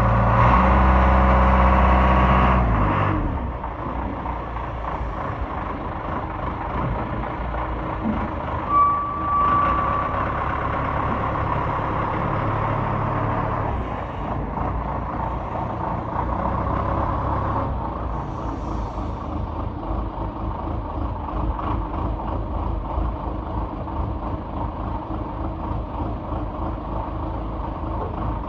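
Heavy equipment engine running, louder and revved for the first three seconds, then settling to a steady run. A short single beep about nine seconds in.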